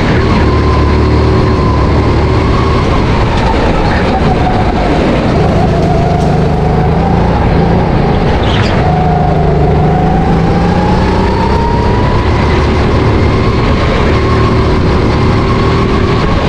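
Onboard sound of a SodiKarts RT10 rental go-kart's Honda GX270 single-cylinder four-stroke engine running under load. Its note falls as the kart slows around the middle, then climbs again as it accelerates.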